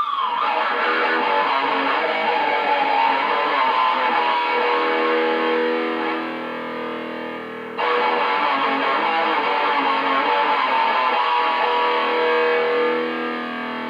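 Electric guitar playing riffs, with sustained chords and notes ringing together. The sound sags a little, then a new loud chord strikes sharply just under eight seconds in and rings on.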